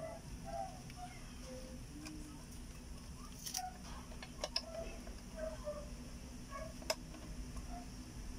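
A few sharp plastic clicks and snaps as a refrigerator inverter board's black plastic housing and its wiring are handled, the sharpest late on. Under them a steady low hum and faint short chirps.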